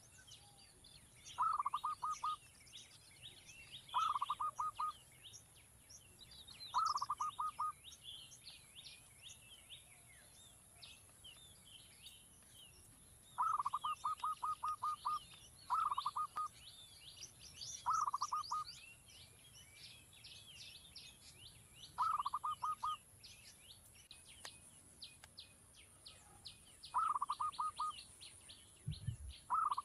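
A bird repeating a short, rapid stuttering call, a quick run of about six to eight notes, every two to four seconds, with many quieter, higher chirps from other birds behind it. A brief low thump comes near the end.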